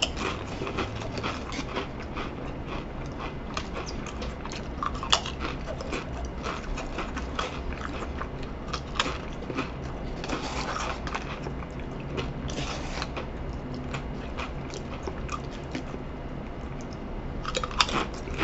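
A person chewing and crunching Pringles stacked potato crisps, a steady run of small crackling crunches. About halfway through, a hand rummages inside the cardboard Pringles can for more crisps.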